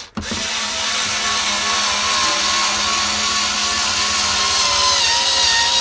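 Cordless drill-driver motor running at a steady pitch under load, driving a screw into a wooden panel. The screw does not go in flush, which the user puts down to a flagging battery.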